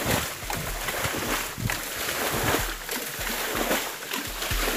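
Water splashing and sloshing in repeated bursts as a small pond is bailed out by hand, the thrown water churning the channel.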